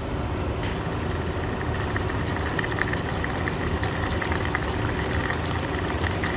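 Fish and fish sauce sizzling in a nonstick frying pan, a steady stream of small crackles over a low rumble.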